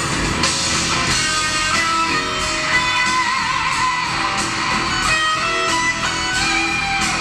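A pop-rock song played back through aftermarket JBL car speakers, in a guitar-led passage with strummed and plucked electric guitar over bass, at a steady loud level.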